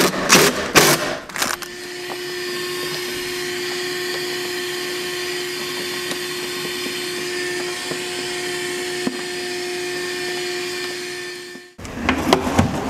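Wet/dry shop vacuum switched on about a second and a half in, running steadily with a constant motor hum as its hose nozzle sucks debris out of a wooden drawer, then switched off near the end. A few knocks come just before it starts and right after it stops.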